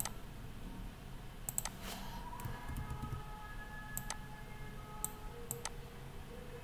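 Computer mouse button clicks while drawing and placing connector lines. There are about half a dozen separate sharp clicks, one pair close together, over a faint steady background hum.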